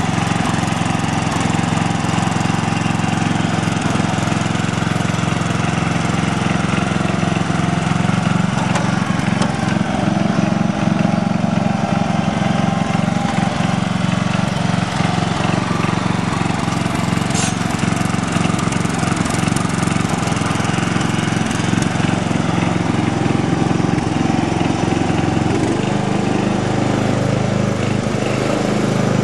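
The 12-horsepower Briggs & Stratton engine of a 1987 Simplicity SunRunner lawn tractor running steadily while the tractor drives across a lawn.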